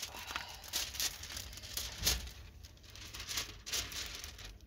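Clear plastic cover film on a diamond painting canvas crinkling and rustling in irregular bursts as it is handled and smoothed back down over the sticky adhesive.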